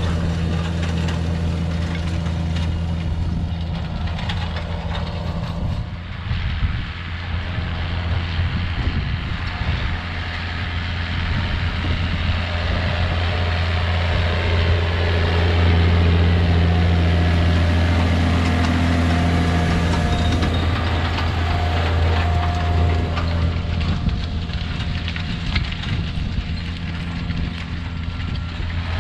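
Challenger MT635B tractor's Sisu 7.4-litre six-cylinder diesel running steadily under load while it pulls a nitrogen side-dress applicator through a field. The engine grows louder toward the middle, as the tractor comes closer.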